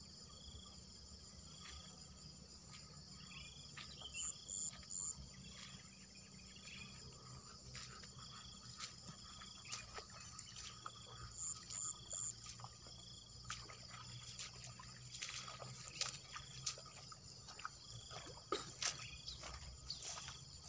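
Faint chorus of crickets or other field insects: a steady high hiss with a short chirp repeating about every two-thirds of a second. Scattered clicks and rustles come more often over the last few seconds, fitting footsteps through wet grass drawing near.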